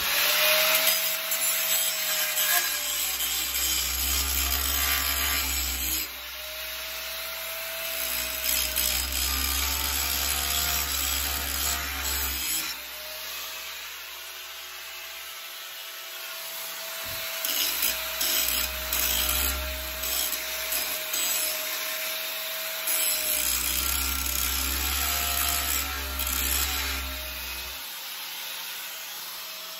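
Angle grinder grinding the steel of a machete clamped in a vice, taking out a notch in the spine and rounding its corners. The motor's whine dips and recovers as the disc is pressed into the metal and eased off, with a few lighter spells between passes.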